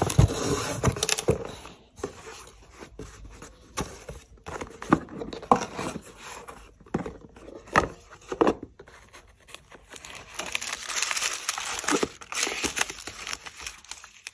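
Rustling and crinkling of paper and cardboard packaging handled by hand, broken by small knocks and taps as box lids and an inner box are moved. The rustling thickens for a few seconds near the end.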